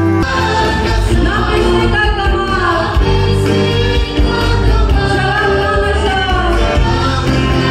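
A group of voices singing a song together over musical accompaniment with a steady bass.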